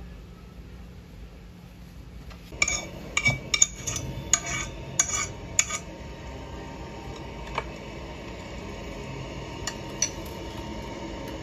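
Cutlery clinking against a dish: a quick run of about eight sharp, ringing clinks, then three more spaced out later.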